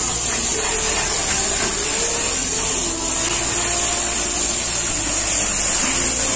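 Steady, high hiss of a gas stove burner turned up high under a pan that is flaring with flames, as mixed vegetables sizzle in it and are stirred with a ladle.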